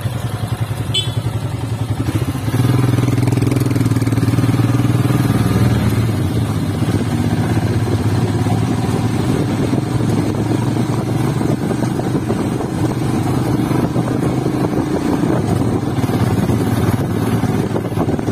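Motorcycle engine running steadily while riding, a low drone that grows stronger about two and a half seconds in and eases back after about six seconds.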